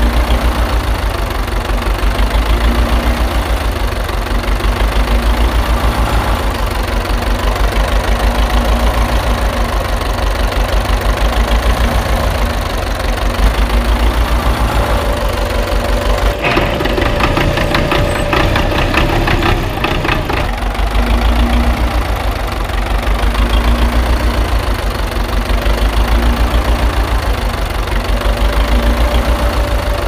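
Diesel engine idling with a rapid, even knock that swells and fades about every two seconds. For about four seconds past the middle it turns busier, with a clatter over it.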